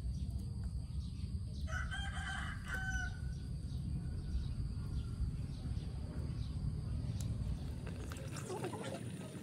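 A rooster crowing once, about two seconds in, over a steady low rumble.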